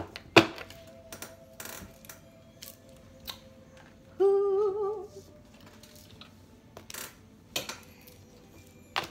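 A deck of oracle cards being squared, tapped and shuffled on a tabletop, giving scattered sharp taps and clicks. A short wavering hum, about a second long, comes a little over four seconds in, over faint background music.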